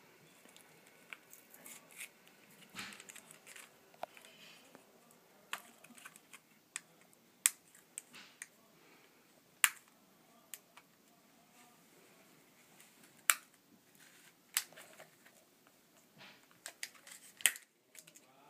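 Hands handling a new laptop SODIMM memory module and small plastic parts: scattered sharp clicks and light taps, about fifteen at uneven intervals, with no steady sound between them.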